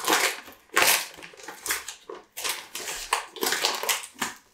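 Clear plastic packaging around a blanket crinkling as it is handled, in about five uneven bursts.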